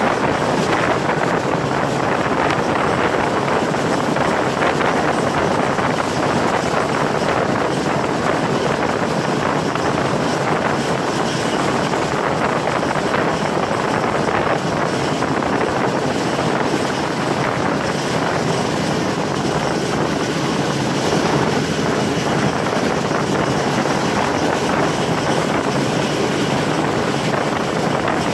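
Passenger train running at speed along the track, a steady rush of running noise mixed with wind buffeting a microphone held out beside the coach.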